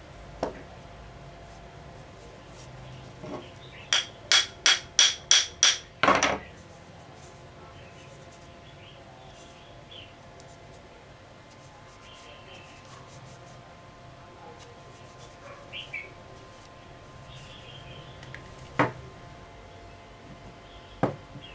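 Seven sharp knocks in quick succession, about three a second, each with a short metallic ring, as the knife's wooden handle is knocked down onto the tang. A few single knocks come before and after.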